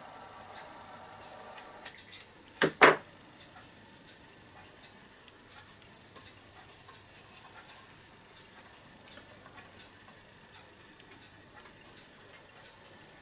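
Small butane torch flame hissing with a faint whistle-like tone as it lights a spirit burner's wick, cut off about two seconds in. Then a few sharp knocks in quick succession, the last the loudest, and after them faint irregular ticking.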